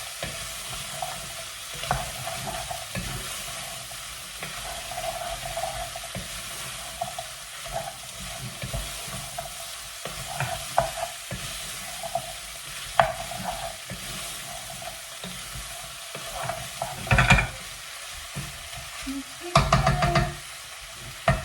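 Carrots and potatoes sizzling in a frying pan as they are stirred, the utensil scraping and clicking against the pan. There are a few louder knocks near the end.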